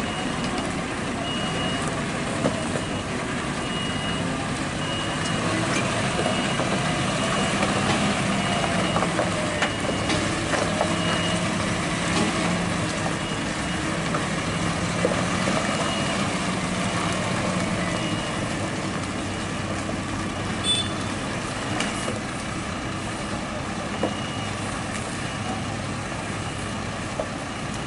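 UD Quester tanker truck's diesel engine running under load on a muddy climb, its revs rising and falling for several seconds in the middle. A reversing alarm beeps steadily about every second and a half over it.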